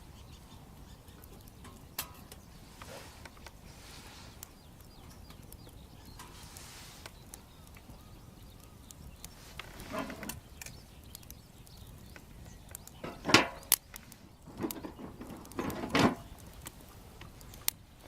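Bonfire wood crackling, with scattered sharp pops and, in the second half, a few louder knocks and rustles as of logs being moved or handled.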